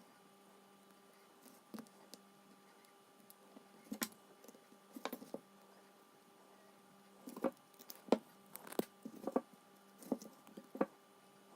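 Scattered small metal clicks and taps as a Lockwood padlock is taken apart by hand, with tools and parts knocking against the lock body. The clicks are sparse at first and come more often in the second half.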